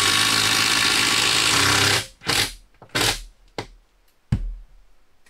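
Power drill driving a screw into the wood framing: a steady run that stops abruptly about two seconds in, then two short bursts on the trigger and two sharp clicks.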